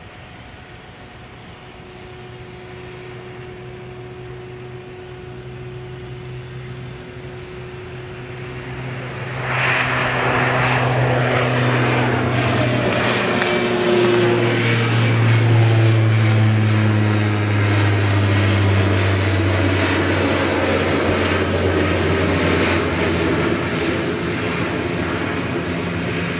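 De Havilland Canada Dash 8 Q400 turboprop at takeoff power, its two Pratt & Whitney PW150A engines and propellers running. The sound grows steadily, jumps sharply louder about nine seconds in as the aircraft passes, and its tones then slide down in pitch as it climbs away.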